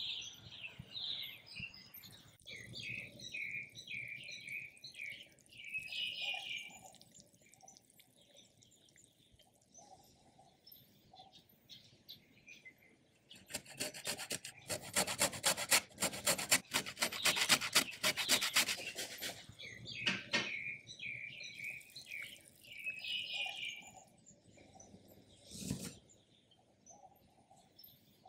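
A lime is rubbed back and forth on a fine stainless steel zester-grater in rapid rasping strokes for about six seconds, midway through. Birds chirp in the background before and after. Near the end a knife cuts once through the lime onto a wooden board with a short knock.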